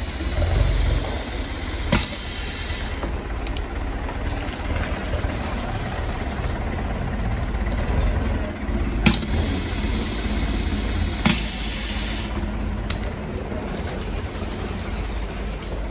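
Pneumatic piston liquid filling machine cycling as it fills bottles: sharp clicks of its air cylinders and valves a few seconds apart, with two long spells of hissing, over a steady low hum.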